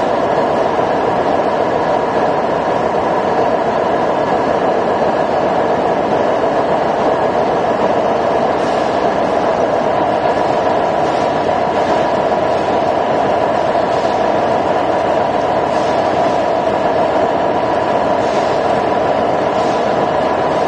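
Steady, loud factory machinery noise: electric motors running with a constant whine over a mechanical clatter, from concrete pole production machinery such as the concrete feeding hopper.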